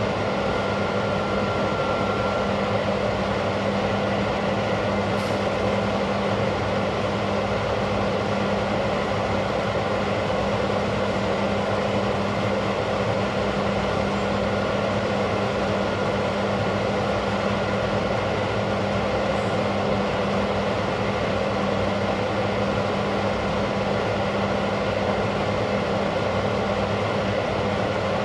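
Steady drone of running machinery: a constant low hum over an even rushing noise, with a faint high tone in the first couple of seconds.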